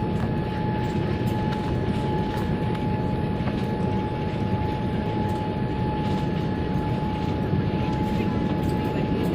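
Aeroplane in descent, heard from inside the cabin: a steady deep rumble of engines and airflow with a constant whine above it.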